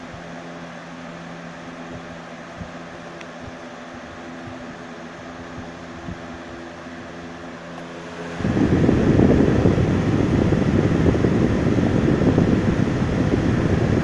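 Lasko 20-inch box fan running with a steady motor hum and rush of air. About eight seconds in, the microphone comes up close to the grille and the fan's airflow buffets it, turning the sound into a much louder, rough rumbling wind noise.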